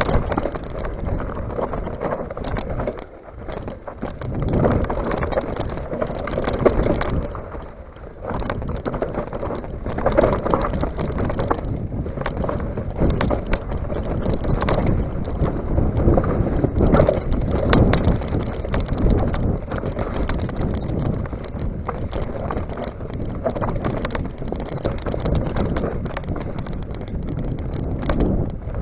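Mountain bike rolling fast down a dry dirt and rock singletrack: tyres crunching over gravel, the bike rattling over bumps, and wind buffeting the camera's microphone. The noise rises and falls with speed, with brief lulls about three and eight seconds in.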